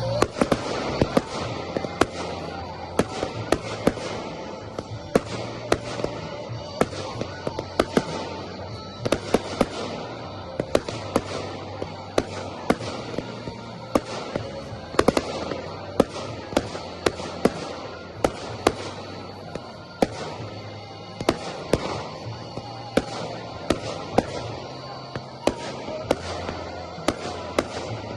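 Category F4 professional fireworks display: a rapid, uneven string of shell bursts and reports, often several a second, with music playing underneath.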